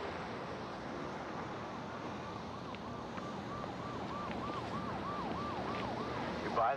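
Emergency vehicle siren in a fast yelp, rising and falling about three times a second over a steady background hiss, with a louder warbling burst near the end.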